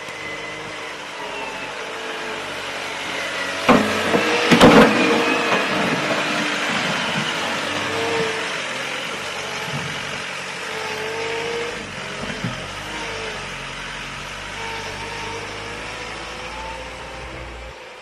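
Engine of a large truck running steadily as it works along a snowy street. A couple of loud knocks or clanks come about four seconds in.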